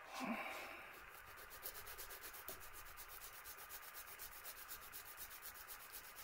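Emery cloth being rubbed by hand with a part pressed down against it on the flat of a vise: faint, regular back-and-forth abrasive strokes. A brief louder sound comes right at the start.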